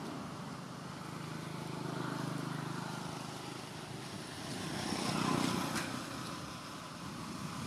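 A distant engine droning steadily, swelling louder about five seconds in as it passes, with a single click near the swell.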